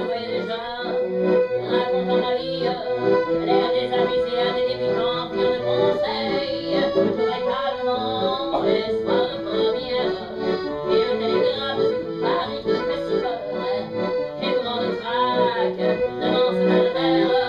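Accordion music: a French chanson tune played over a steady, repeating accompaniment.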